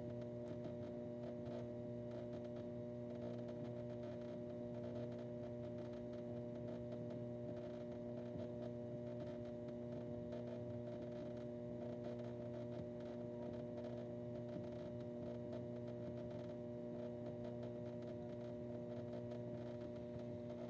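Steady electric hum of a pottery wheel's motor running, a few even tones held constant without change.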